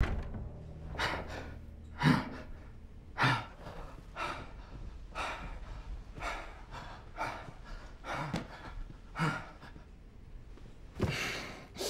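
A man breathing heavily and sighing, about one breath a second, some of the breaths carrying a short voiced groan.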